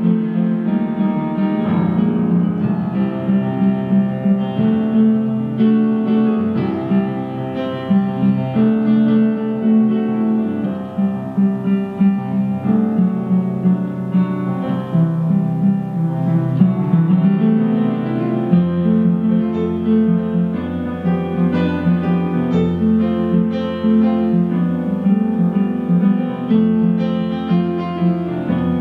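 Live instrumental accompaniment to a silent film: a continuous flowing passage of held chords and melodic notes over a steady bass, with the bass line changing about two-thirds of the way through.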